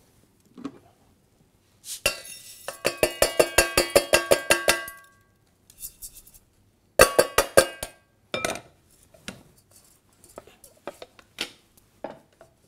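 A metal strainer knocked rapidly against the rim of a stainless steel saucepan, each knock ringing, to shake drained rice into the pan. Two runs of quick knocks, the first about three seconds long and a shorter one after a pause, then a few lighter clinks.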